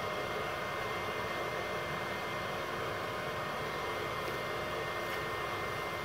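A small 450-watt Multipro IGBT inverter stick welder switched on and idling, its cooling fan giving a steady whirring hiss with a thin, steady high whine over it.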